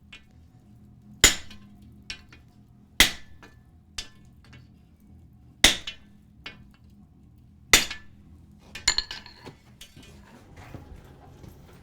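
Sledgehammer blows on a hot cut chisel splitting hot steel flat bar: four heavy metallic strikes about two seconds apart, with lighter knocks between them and a quick run of lighter clinks near the end.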